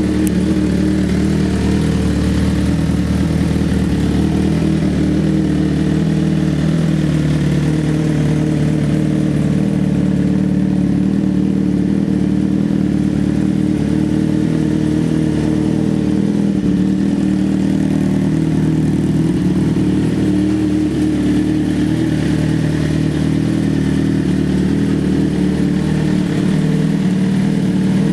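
Suzuki GSX-R1000 K8's inline-four engine idling steadily, with no revving.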